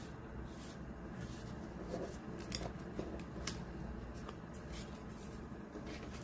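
Photocards being slid together and gathered into a stack on a table: a scattered string of light clicks, taps and rustles, the sharpest a few seconds in.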